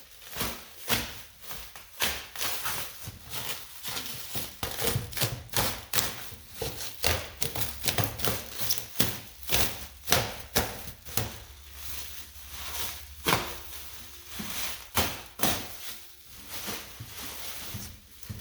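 Irregular knocks, clunks and clatter from a wooden sewing machine cabinet being handled, several sharp hits each second.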